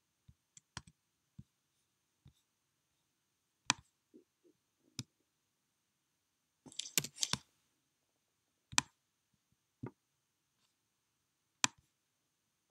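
Computer mouse clicks: scattered single clicks every second or two, with a quick flurry of clicks about seven seconds in.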